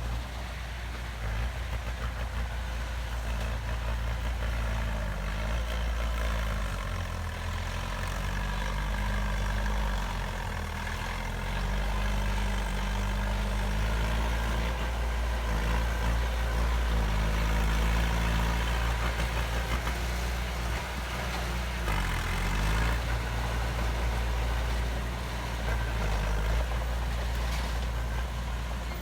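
Heavy diesel engine of earthmoving machinery running steadily. Its engine speed dips and picks back up a few times as it works under varying load.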